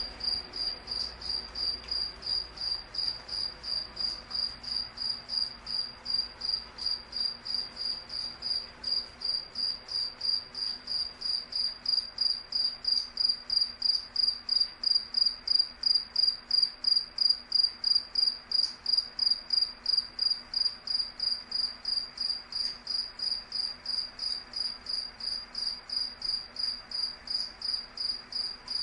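A cricket chirping: short chirps at one high, steady pitch, repeating evenly at about two to three a second.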